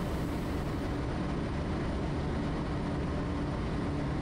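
Steady drone of a Quest Kodiak's PT6A turboprop engine and propeller heard inside the cockpit in flight, a constant low rumble with a faint steady hum.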